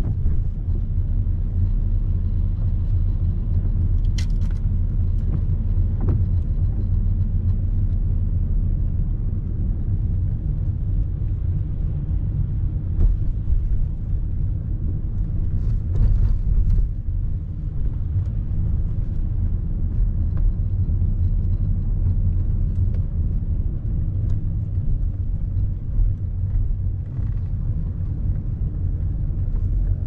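Car cabin road and engine noise while driving: a steady low rumble with a few brief clicks, heard from inside the car.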